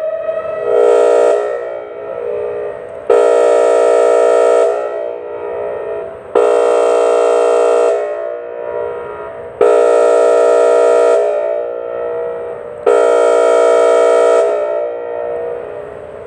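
Outdoor tornado warning siren sounding its air horn tone: five steady blasts at one pitch, the first short and the rest about a second and a half each, about three seconds apart, each dying away slowly in echo.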